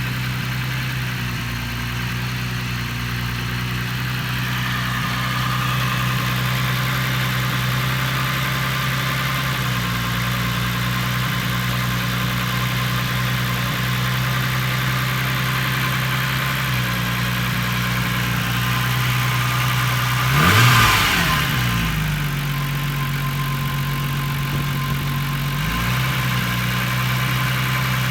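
Volkswagen Corrado engine idling roughly, its idle speed shifting a few times, with one brief rise and fall in engine speed about two-thirds of the way through. The owner is chasing an idle that jumps up and runs rich.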